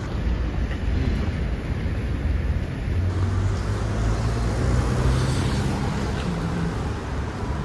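City road traffic: cars driving past close by, with a low rumble and one engine's hum swelling through the middle and fading near the end.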